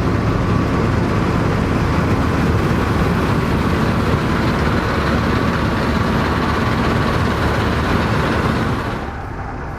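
Dronningborg D2600 combine harvester running under load while harvesting: a steady, loud engine hum mixed with the dense clatter and rush of the threshing machinery. Near the end the sound suddenly drops and turns duller.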